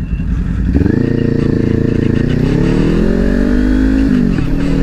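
Parallel-twin motorcycle engine under hard throttle. It opens up about a second in, climbs in pitch through a gear, drops with an upshift about four seconds in, then pulls steadily again.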